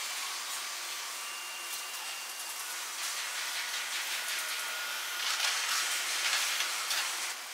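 Shipyard and harbour ambience played back at four times speed: a steady hiss with a few faint thin whining tones, growing a little louder and rougher about five seconds in.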